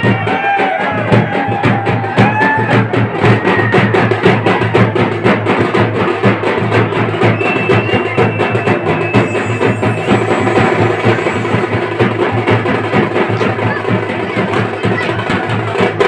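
Fast, continuous drumming, with sharp strokes packed closely together.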